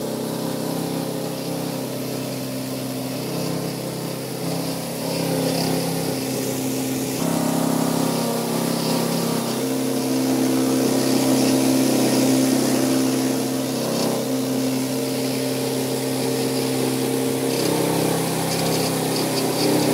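Mini combined rice mill (husker and polisher) running while milling paddy into rice: its electric motor and milling works make a steady hum with a rushing noise over it.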